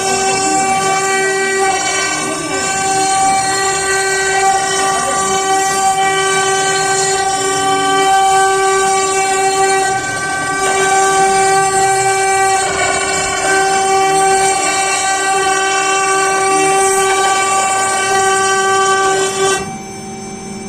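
CNC router spindle running at high speed with a steady high whine, over the rough noise of the bit cutting wood; the whine drops out and the sound falls off near the end.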